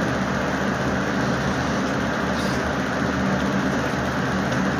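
Steady droning noise with a constant low hum, unbroken and even in level throughout.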